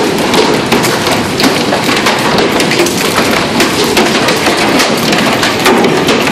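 Hail pelting a tow boat, a loud, dense, unbroken clatter of countless small impacts.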